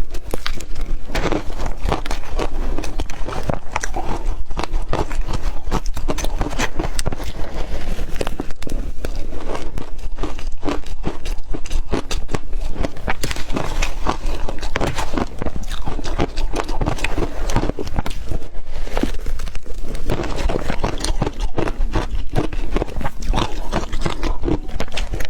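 Close-miked eating: a person chewing big mouthfuls of food, with a rapid, continuous stream of wet smacks, clicks and crunches.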